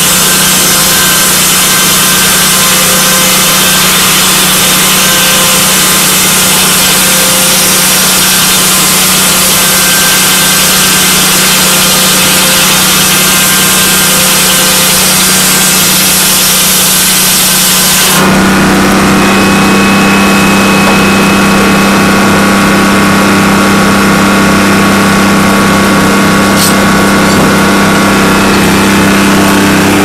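Circular sawmill running: the big circular head saw and its power drive give a steady droning hum under a hiss. About two-thirds of the way through the sound changes suddenly, the hum growing stronger with a low pulsing beneath it.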